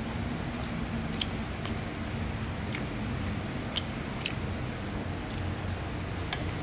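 Metal spoon knocking and scraping against a nonstick frying pan while stirring fried rice, a scatter of sharp clicks over a steady low hum and hiss.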